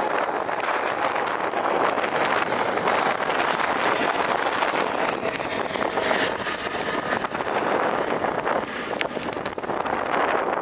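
Boeing 777 airliner's twin jet engines at takeoff power as it climbs out overhead: a steady, broad rush of jet noise.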